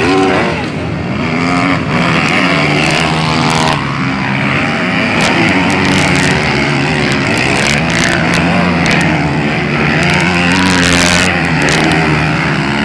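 Several motocross dirt bikes racing past on a dirt track, their engines revving up and down through the turns, the pitches of different bikes overlapping.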